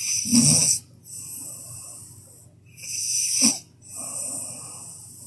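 A sleeping woman snoring loudly: two snores about three seconds apart, each followed by a longer, softer breathy stretch. The second snore ends in a short snort.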